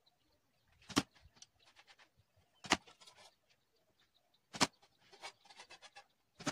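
Arrows shot from a bare recurve bow striking a cardboard box target: three sharp hits about two seconds apart, each followed by a brief rattle, and a fourth hit right at the end.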